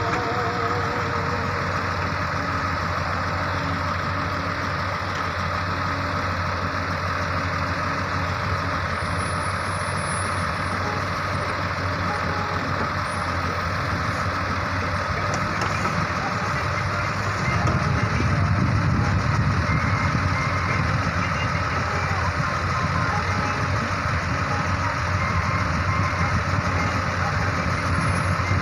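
Ace AX130 backhoe loader's diesel engine running steadily at work, with a steady high whine alongside. About two-thirds of the way through it grows louder and heavier.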